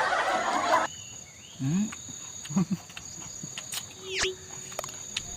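Insects in the forest give a steady, high, thin drone. A loud noisy rush breaks off suddenly about a second in, and a few short low voice sounds follow.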